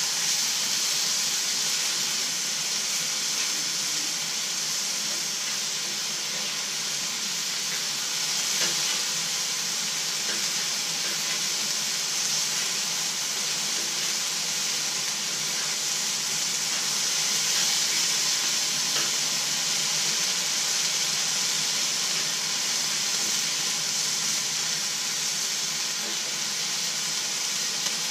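Chicken pieces sizzling steadily on a hot Blackstone flat-top griddle, with a few faint clicks of metal spatulas against the steel surface.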